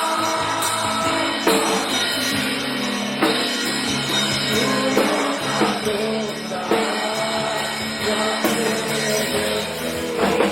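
A song with a drum-kit beat under a melody, with a strong hit about every second and a half to two seconds.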